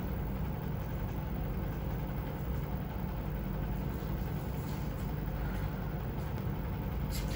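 Steady low mechanical hum, like a running machine, with a few faint steady tones above it and a couple of faint clicks near the end.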